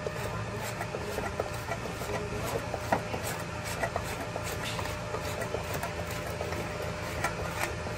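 MIG welding wire being wound back by hand onto its spool in a MIG welder's wire-feed compartment. The wire slides back through the feeder and the torch cable with a run of light, irregular ticks and clicks over a steady low hum.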